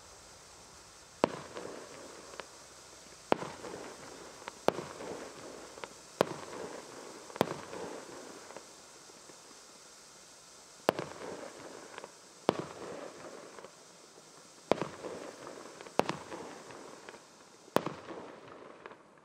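Firework bangs going off one at a time, about a dozen sharp reports spaced irregularly one to three seconds apart, each trailing off in a short echoing rumble, over a steady faint hiss.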